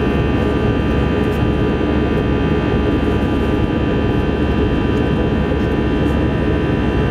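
Airbus A320 jet engines heard inside the cabin as the airliner climbs out just after takeoff: a steady, even rush of noise with several steady high tones on top.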